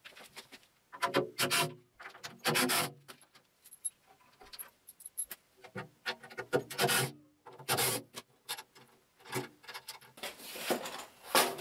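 Wooden blocks rubbing and scraping in short, irregular bursts as they are unscrewed and worked out from under a metal lathe stand.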